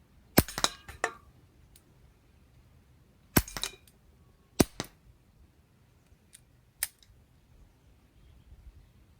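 Umarex Beretta 92 CO2 air pistol firing .177 pellets: four sharp cracks a second to three seconds apart, the first three each trailed by quick smaller clicks and knocks.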